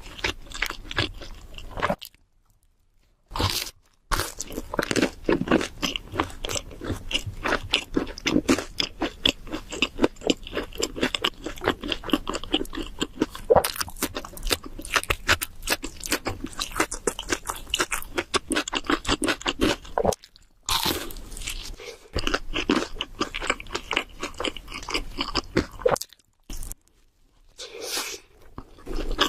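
Close-miked chewing of cheese seafood pizza: rapid crunching of the crust and wet chewing, broken by a few brief pauses.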